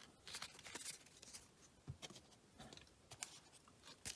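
Faint, scattered rustles and light taps of trading cards and foil packs being handled.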